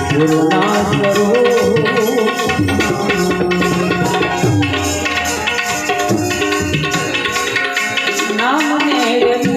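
Instrumental interlude of a Gujarati devotional bhajan: tabla playing a steady rhythm under a sustained melodic instrument line that slides in pitch a few times near the end, with no singing.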